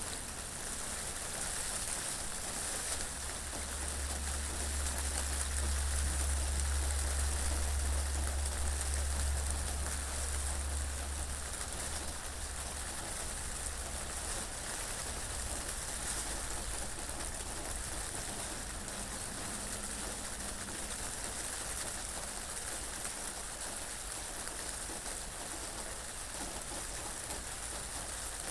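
Steady rain falling, an even hiss throughout. A low wind rumble swells from a few seconds in and fades before the middle.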